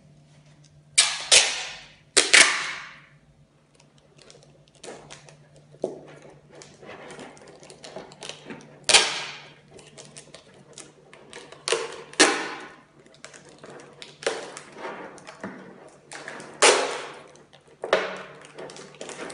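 Packing tape pulled off the roll in about seven short, loud rips while being wrapped around a cardboard tube joined into thin plastic water bottles, with crinkling and handling noise of the plastic between the rips.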